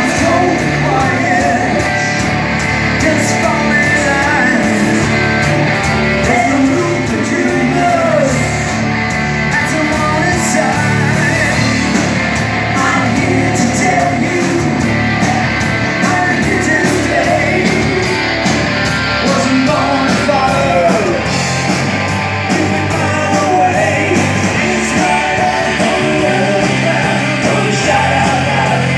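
Live rock band playing: two electric guitars, electric bass and drum kit, with a singer's voice over them.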